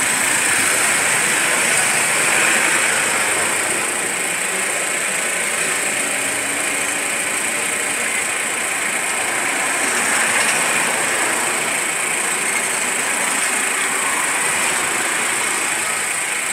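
An engine running steadily under a constant hiss, swelling slightly twice.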